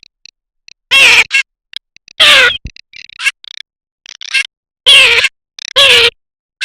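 Garganey calling: four loud, falling calls about a second or so apart, with short, faint, high crackling notes between them.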